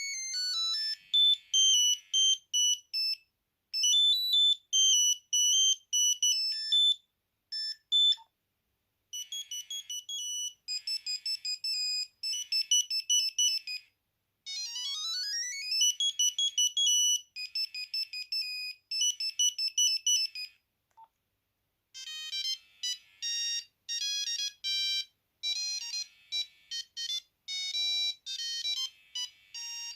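Nokia 8210 mobile phone playing its built-in monophonic ringtones one after another, a different beeping tune every few seconds with short pauses between them. A quick rising sweep of notes comes about halfway through.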